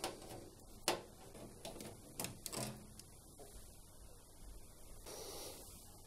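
Faint clicks and light knocks of a screwdriver undoing a Torx screw and hands handling a washing machine's plastic kick plate, a few separate taps spread through with a soft rustle near the end.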